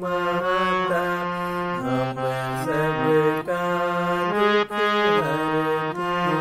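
Harmonium played by hand: a slow devotional melody of held reed notes that step from one to the next about every half second to a second, with lower notes sounding under the tune and moving with it.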